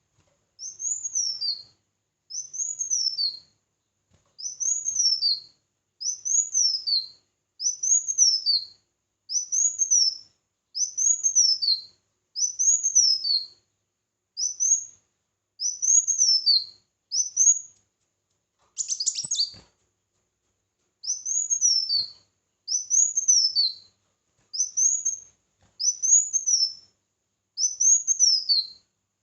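A small songbird repeating the same short, high, rising-then-falling phrase over and over, about once every two seconds. Midway the pattern breaks for one short harsh burst before the phrases resume.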